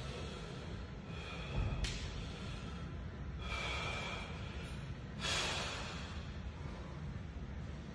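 A bodybuilder breathing out hard three times, about a second apart each, some breaths with a faint whistle, from the strain of holding his posing shapes. A low steady hum runs underneath.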